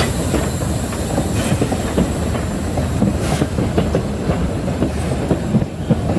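Metre-gauge steam train rolling past at close range, its locomotive and carriage wheels clattering over the track in a steady clickety-clack.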